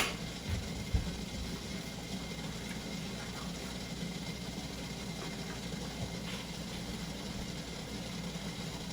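A steady low mechanical hum, with two soft low knocks about half a second and a second in.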